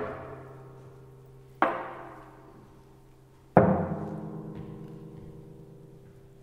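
Classical guitar played with three hard, percussive chord strokes, each left to ring and fade; the third is the loudest and rings longest.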